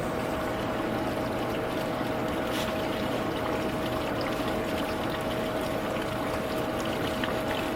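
Water running steadily out of the drain opening of an Atwood RV water heater tank while it is being flushed to clear out sediment, with a steady tone under the rush of water.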